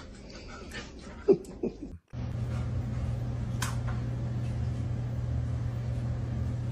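Two short falling yelps from a dog about a second in. Then a steady low hum with one brief sharp noise near the middle.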